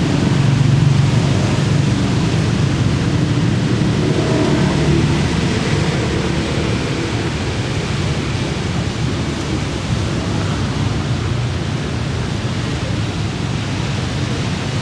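Steady beach ambience: a constant low rumble of wind and surf noise.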